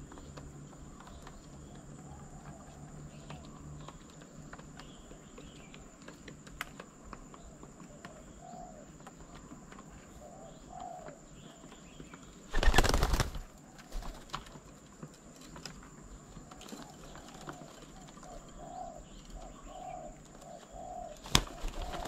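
Spotted doves: a loud clatter of wings lasting under a second about twelve and a half seconds in, then soft low cooing repeated over and over in the last few seconds, with faint chirps of small birds.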